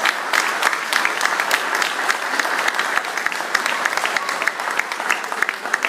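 Audience applauding steadily, many hands clapping at the end of a song performance.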